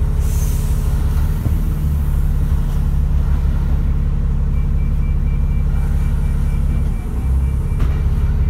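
Dennis Trident double-decker bus engine idling, heard from inside the passenger saloon: a steady low drone that shifts slightly about seven seconds in.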